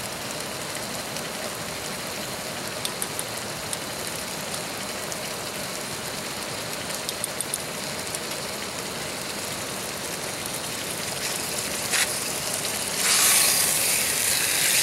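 A steady hiss with a few light clicks, then about 13 seconds in a loud sizzle sets in as a raw steak is laid into a hot cast iron skillet on a canister camp stove, searing.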